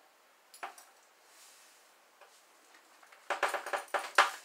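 Metal measuring spoon clicking and rattling as acid blend is scooped and tapped into a plastic bucket fermenter: a single click under a second in, then a quick run of clicks and scrapes from about three seconds in.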